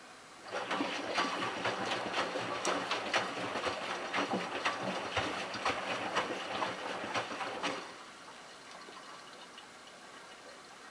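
Miele Touchtronic W3033 front-loader's honeycomb drum turning during the delicate wash, with water sloshing and splashing over the sweater and small clicks throughout. It starts about half a second in and stops short near 8 s, the pause between gentle drum turns on a delicate cycle.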